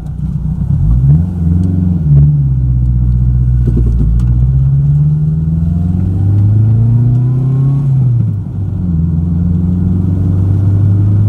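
Turbocharged Honda K20 inline-four of an Acura RSX heard from inside the cabin while accelerating. The engine pitch climbs in each gear and drops back at shifts, about two seconds in and again about eight seconds in, then holds steady.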